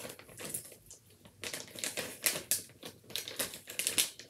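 Thin plastic travel bag crinkling and crackling as it is handled and items are pushed into it, in quick irregular bursts of small clicks.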